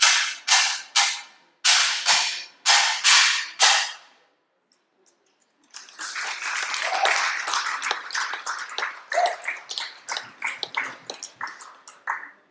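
A pair of hand cymbals clashed about twice a second, each crash ringing briefly, for about eight crashes before stopping. After a short pause, an audience applauds.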